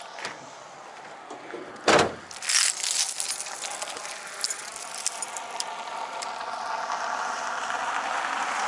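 Steel snow-chain links clinking and jangling as a tangled tire chain is held up and shaken out by hand, with one loud thump about two seconds in. A car approaches on the road, its noise growing steadily louder toward the end.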